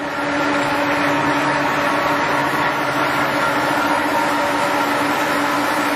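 LeBlond 19 x 54 heavy-duty engine lathe running under power, with a steady mechanical hum and several steady tones from its spindle and gearing.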